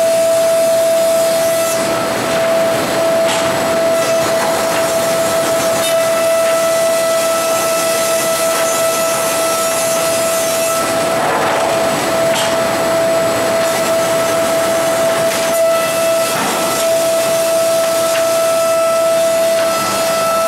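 Northtech high-speed planer and its outfeed line running: a loud, steady whine over a hissing rush, swelling briefly twice in the second half.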